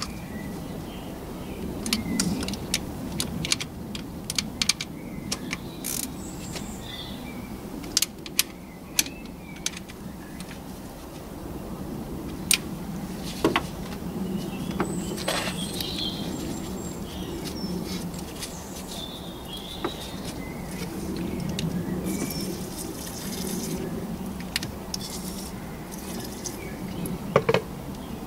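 Small ratchet and hand tools clicking and clinking on the engine, irregular and mostly in the first half, as the tiny bolts of the camshaft central magnet adjuster are tightened. Birds chirp in the background, and there is a short hiss a little past two-thirds of the way through.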